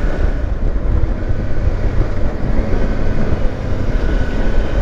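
Kawasaki Versys X300 motorcycle's parallel-twin engine running on the move, a steady low rumble.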